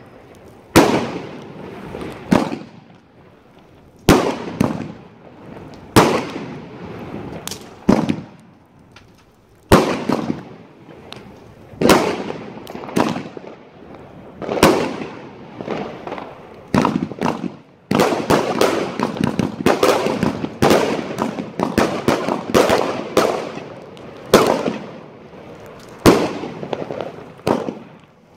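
Aerial fireworks going off: a long series of loud bangs, one every second or two, each trailing off with a crackle. The bangs come thicker and closer together from about two-thirds of the way through.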